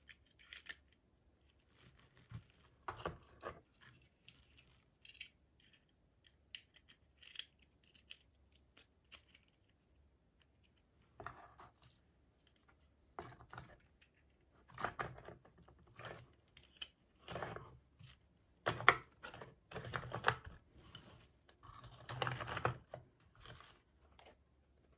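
Small toy packaging being handled and opened by hand: irregular rustling, crinkling and light clicks, busier in the second half.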